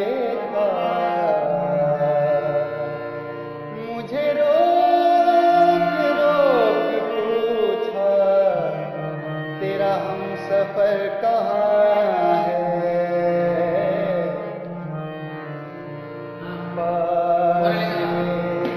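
Ghazal music: a male voice sings ornamented phrases that glide between notes, over a steady held low note of accompaniment.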